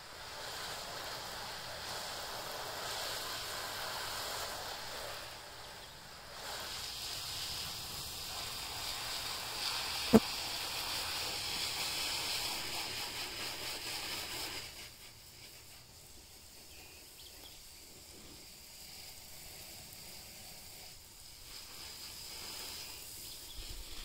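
A steady high hiss with one sharp click about ten seconds in; the hiss drops away abruptly about two-thirds of the way through, leaving a faint, quieter background.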